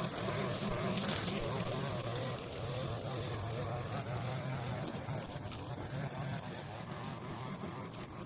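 Small petrol engine of a garden power tool, such as a strimmer or hedge trimmer, running with a steady buzz, easing off slightly towards the end.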